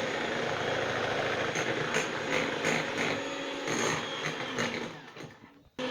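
Electric mixer running steadily as it beats an egg, sugar and oil batter; it fades out near the end.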